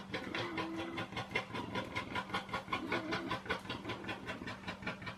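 Male warthog in rut giving his rapid, rhythmic chugging courtship grunts, about six pulses a second, the 'train-like noise' he makes while chasing a female to mate with her.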